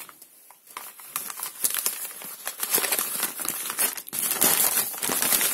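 Crumpled packing paper crinkling and rustling as hands handle a bare-root orchid plant on it. It is quiet for a moment at the start, then the crackling gets going and is loudest near the end.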